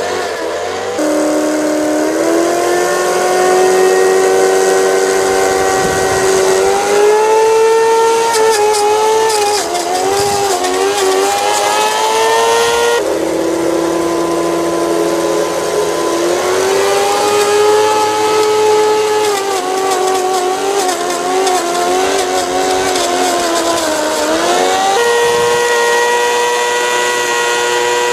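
Whine of the small electric motors of a 16mm-scale garden railway train pushing a snow plough through snow. The pitch sags and wobbles as the load from the snow changes, then rises again. The pitch jumps abruptly about a second in, around the middle, and a few seconds before the end.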